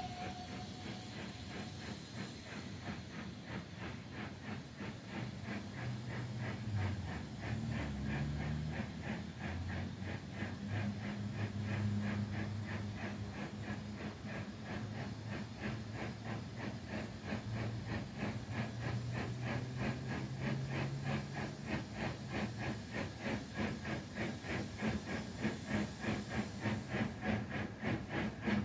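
Steam locomotive exhaust beats from the double-headed Midland 4F No 43924 and Ivatt Class 2MT No 41241 working a train, a steady chuffing rhythm that grows louder as the train approaches. The tail of a steam whistle fades out about a second in.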